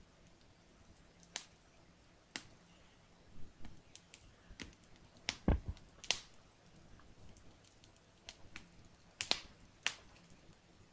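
Wood logs burning and crackling: irregular sharp pops and snaps over a faint hiss, the loudest pop about five and a half seconds in.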